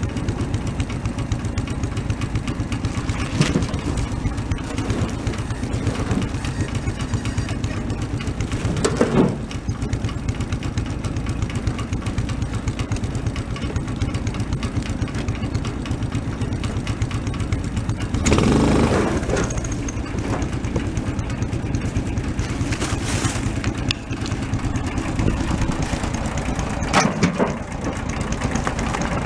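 Quad ATV engine idling steadily, with several knocks and clatters as its rear dump rack tips and firewood logs drop out. The loudest of these comes a little past halfway and lasts about a second.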